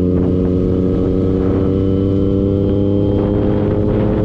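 A vehicle engine running at steady revs while under way, its note easing slightly lower toward the end.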